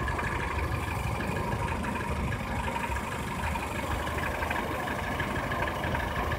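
Peugeot 307 petrol engine idling steadily, making the abnormal engine noise that the mechanic is demonstrating.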